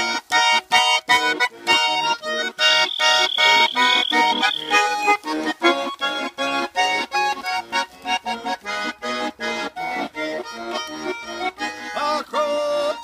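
Garmon, a Russian button accordion, playing an instrumental passage with a quick, even beat of chords.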